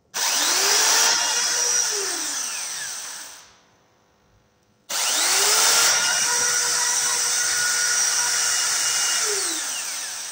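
A 400-watt corded electric drill run twice. Each time it spins up with a rising whine, runs steadily, then winds down with falling pitch as the trigger is let go; the second run lasts about five seconds.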